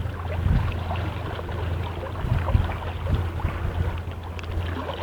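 Golden retriever wading in water hunting for fish, with light irregular splashing over a steady low rumble.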